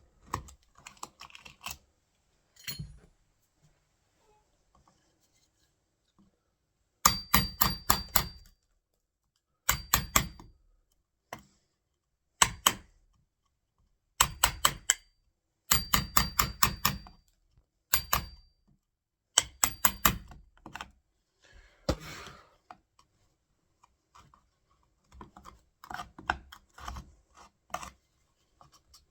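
Wood chisel being tapped into a door edge to chop out the latch recess: quick bursts of light, sharp taps, several a second, with a faint metallic ring. Softer scraping and clicking follow near the end.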